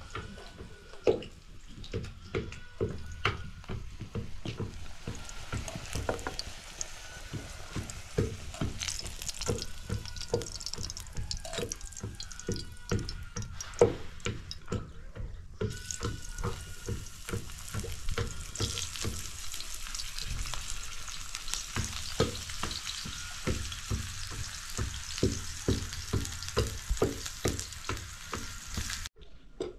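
Food frying in oil in a pan, a steady sizzle that grows louder about halfway through, with short thuds about twice a second from a long wooden pestle pounding in a tall wooden mortar.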